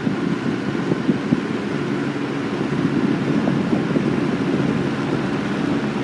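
Super 3713 20-inch box fan (Galaxy/Lasko) with its 3-speed shaded-pole Marco plastic motor, running steadily on low speed with a deep, rumbling sound. A few light ticks come in the first second or so.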